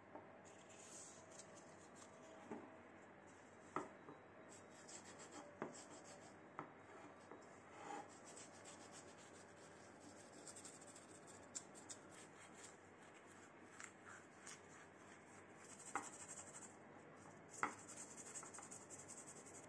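A steel part of old tin snips being hand-sanded with sandpaper: faint rubbing strokes that come in runs, with a few light clicks and taps of metal scattered through.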